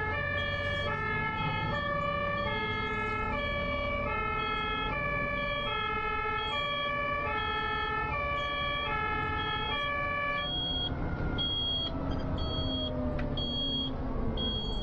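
German emergency vehicle's two-tone siren alternating between a high and a low note about twice a second, over the rumble of road traffic. About ten seconds in, the two-tone stops and only a high short beep repeats about twice a second until the sound cuts off abruptly.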